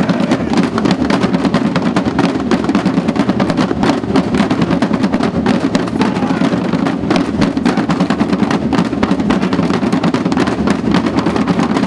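A drum band of marching snare drums playing together, beating out a fast, driving rhythm of dense, rapid strokes without a break.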